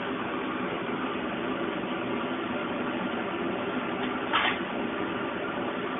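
Small electric silver-melting furnace running with a steady hum, with a short hissing scrape about four seconds in.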